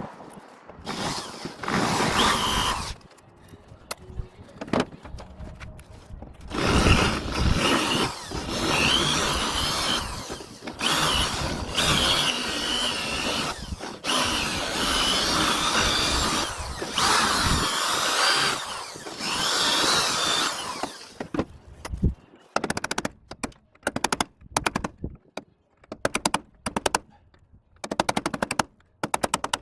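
Power drill running under load in long stretches, its whine wavering as it bites into the broken door hinge. Near the end it gives way to rapid short bursts repeating several times a second.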